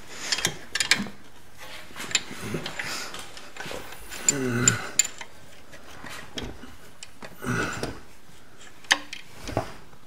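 Scattered small metal clicks and taps as a motorcycle's rear brake rod and its pin are wiggled by hand to line up with the hole in the brake pedal arm, with a brief low grunt about halfway through.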